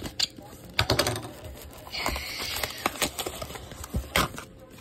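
A shrink-wrapped cardboard trading-card box being handled: light clicks and taps, a brief crinkle of plastic wrap about two seconds in, and a knock near the end as the box is set down on the desk mat.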